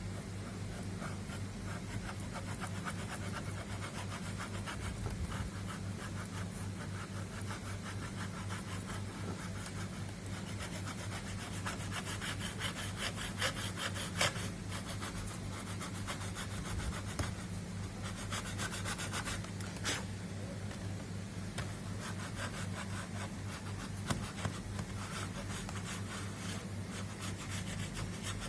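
Rapid, repeated scraping or rubbing strokes, like a hand tool working against a hard surface, over a steady low electrical hum, with a few sharp clicks around the middle.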